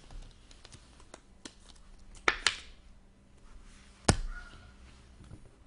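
Trading cards and packs being handled on a table: light rustling clicks, with sharp taps twice in quick succession a little over two seconds in and once more just after four seconds.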